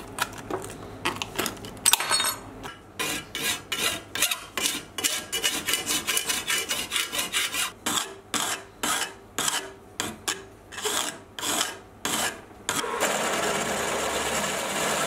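Metal hand file rasping on the edge of a 1 mm sheet steel plate in a vise, in quick even back-and-forth strokes, after a few snips of tin snips cutting the steel at the start. Near the end a drill starts and runs steadily, boring a hole through the steel plate.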